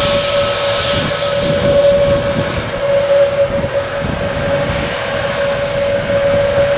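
Jet airliner engines running, a steady whine held at one pitch over a loud rushing rumble.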